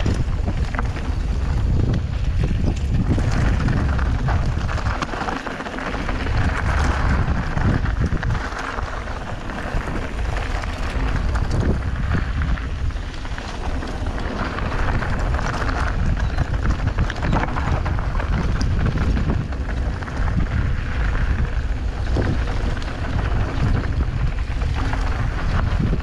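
Wind buffeting the microphone of a camera on a mountain bike descending a dirt trail, a steady low rumble, with the tyres rolling over dirt and gravel and scattered short clicks and rattles from the bike over bumps.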